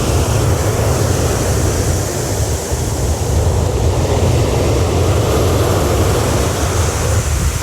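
Ocean surf breaking and washing on the beach, with a steady low rumble of wind on the microphone.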